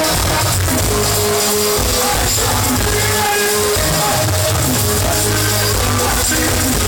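Live reggae concert music played loud: a band with a heavy bass line and a singer's voice over it.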